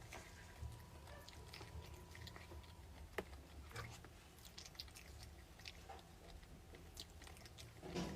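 Faint close-up chewing of soft rolled crepe cake: quiet wet mouth sounds and small clicks, with a sharper click a little past three seconds in and a louder bite near the end.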